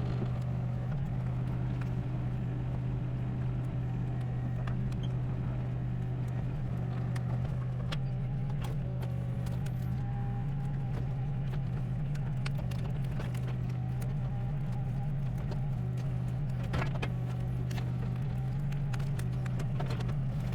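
SANY SY26U mini excavator's diesel engine running steadily, with scattered light clicks and knocks on top.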